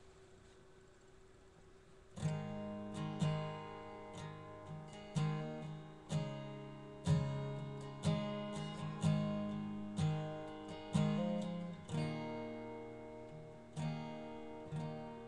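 Acoustic guitar played solo, starting about two seconds in: picked bass notes and chords ringing out, roughly one stroke a second.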